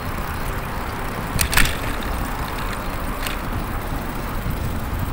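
Wind rumbling on the microphone and street noise while riding a bicycle, with a sharp click about a second and a half in and a fainter one a little past three seconds.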